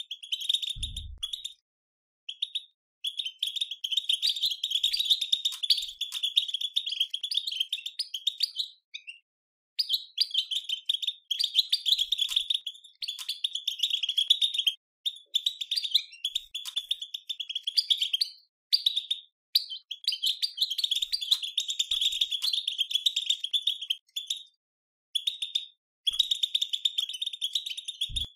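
European goldfinch twittering: fast, buzzy chatter in phrases of a few seconds with short breaks between them, the 'batbata' call used to get caged goldfinches singing. A brief low thump about a second in.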